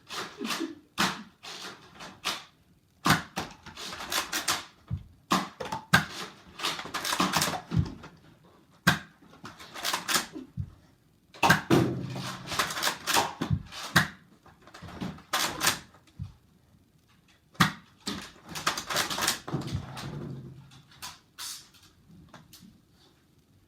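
Nerf blaster fight: scattered sharp clicks and knocks, with several stretches of scuffling noise lasting a second or two.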